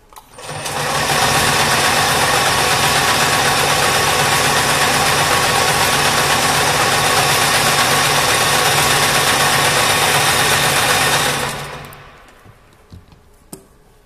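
High-speed wire-harness braiding machine running, braiding threads onto a yellow tube: a loud, steady mechanical running noise with a low hum. It starts about half a second in, is at full speed within a second, and runs down to a stop near the end.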